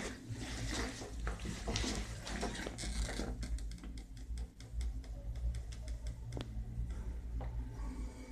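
Cable-car gondola running toward its station, heard from inside the cabin: a steady low rumble with scattered clicks, then a quick, even run of light ticks from about three seconds in.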